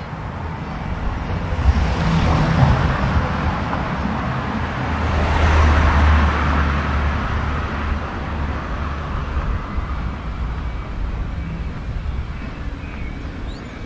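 A car driving past close by on the street. Its engine and tyre noise builds, is loudest about halfway through, then fades away.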